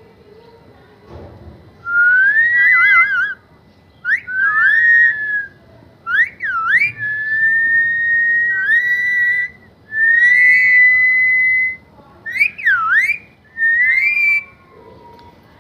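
Pet parrot whistling a run of about eight clear whistles: some held on one note, some swooping down and back up, one warbling.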